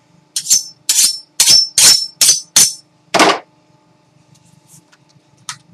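A large knife blade scraped quickly against metal in sharpening-style strokes: about seven short, ringing scrapes in a fast rhythm, then one duller, lower stroke.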